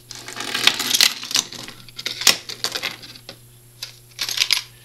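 Wartime silver nickels clinking and sliding against each other as a roll is tipped out of a plastic coin tube onto a wooden desk. There is a dense run of clinks for the first couple of seconds, then a shorter cluster near the end.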